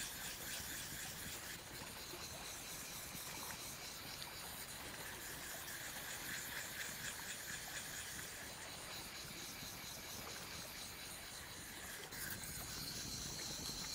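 Steady outdoor forest ambience: an even hiss with a faint, fine high-pitched texture, shifting slightly about twelve seconds in.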